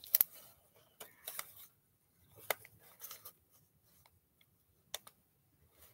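A crumpled paper receipt being handled and crinkled in the hands: a few short, light crackles and rustles with pauses between them.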